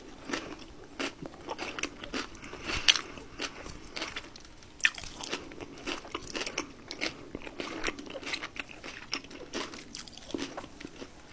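Close-miked chewing and mouth sounds, with irregular sharp clicks, as a person eats food from a bowl with a plastic spoon.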